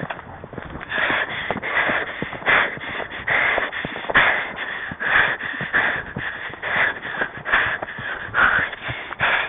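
A horse rider panting hard, with short, rasping breaths in a quick steady rhythm of a little more than one a second.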